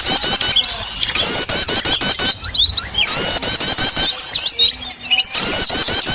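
Noisy chorus of small songbirds used as a lure recording to draw small birds: fast, high chirps repeating many times a second, with a busier stretch of looping whistles in the middle.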